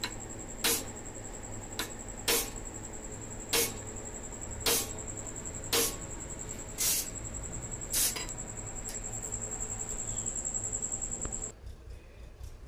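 Aluminium rivets being set through a brake shoe lining plate: seven sharp metal strikes, roughly one a second, with a couple of fainter clicks between them. A steady high-pitched whine runs underneath and cuts off abruptly near the end.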